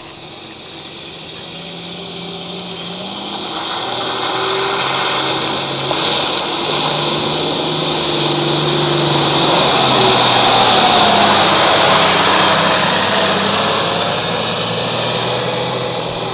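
Off-road 4x4 SUV engine working under throttle as it drives through a muddy pond and out onto grass, its pitch rising and falling with the revs. It grows louder toward the middle as the vehicle nears, then eases off as it passes.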